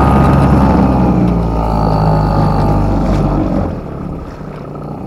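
Toyama 2.6 hp outboard motor running steadily on a kayak at a little over half throttle, not yet fully broken in; about three and a half seconds in it drops noticeably in level.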